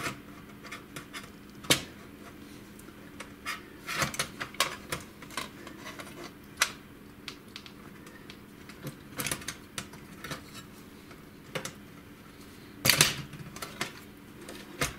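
Clicks and light metallic knocks as a laser printer's sheet-metal side plate and plastic parts are fitted onto the chassis, with the loudest clatter about 13 seconds in.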